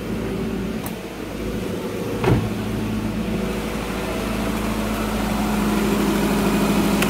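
A 2008 Nissan Altima's 2.5-litre four-cylinder engine idling steadily, with its newly fitted serpentine belt driving the alternator, which is charging normally. A single thump about two seconds in.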